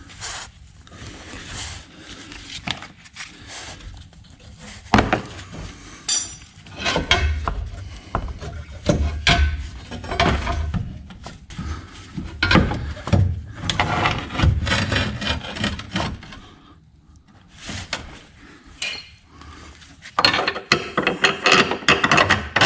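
Metal tools and car parts knocking, clanking and scraping by hand in irregular strokes, with a quieter spell past the middle and a quick run of sharp clicks and clinks near the end.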